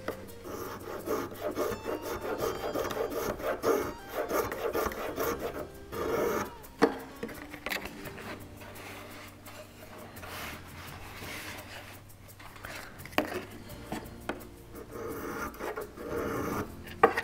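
Wood rubbing and scraping in spells, with a few sharp taps: a thin wooden planking strip being pressed, slid and worked along its edge against the hull framing during dry fitting.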